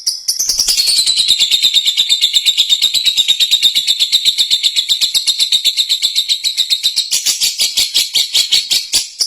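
Lovebird singing its ngekek: a long, unbroken run of rapid, high chattering notes in an even rhythm, getting louder about a third of a second in.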